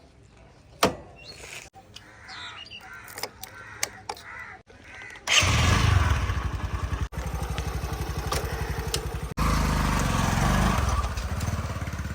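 Birds chirping faintly, then about five seconds in a heavy diesel engine suddenly comes in loud, running with an even low chugging beat and growing louder again a little past halfway.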